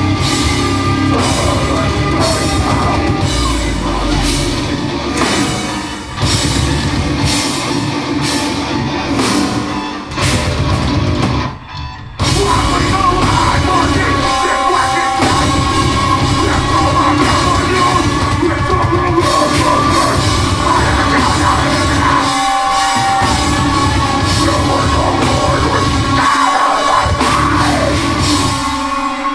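Live heavy metal band playing loud: distorted guitars, bass, drum kit and vocals into a microphone. The music breaks off briefly about twelve seconds in, then the whole band comes back in.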